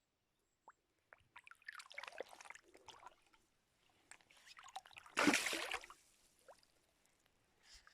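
Water splashing and sloshing in a few separate bursts, the loudest about five seconds in, with small clicks and knocks between them.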